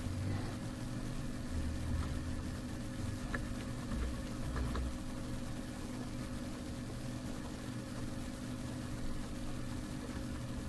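Steady low background hum with a few faint clicks of typing on a computer keyboard in the first half.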